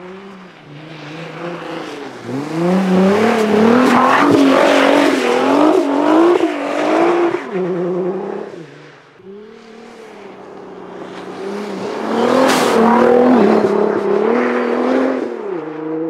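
Tuned Nissan R35 GT-R's twin-turbo V6 revving hard and unevenly while driven on snow, its pitch rising and falling again and again under the throttle. The sound swells twice as the car comes by and fades between, with one sharp pop about twelve seconds in.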